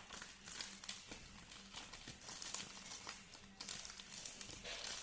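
Faint rustling and light taps as a courier package's cover is handled.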